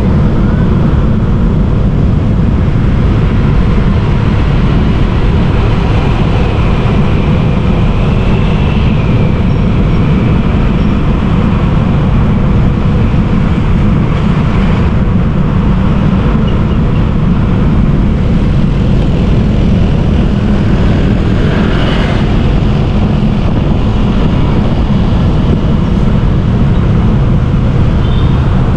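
Steady city traffic noise heard while travelling along the street, dominated by a heavy low wind rumble on the microphone. A faint gliding whine comes in between about six and nine seconds in, and a brief sharper sound about 22 seconds in.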